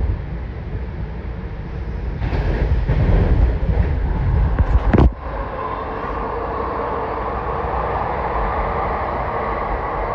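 AirTrain JFK car under way, heard from inside the cabin. A low rumble and rush swells for a few seconds and drops off abruptly about five seconds in, then gives way to a steady running whine.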